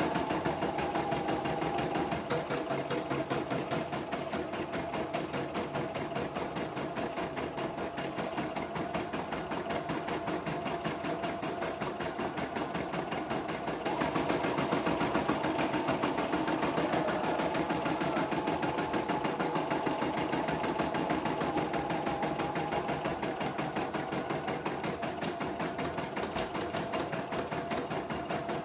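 CNY E960 portable embroidery machine stitching a design in embroidery mode: a fast, even chatter of needle strokes over a steady motor whine. It gets a little louder about halfway through.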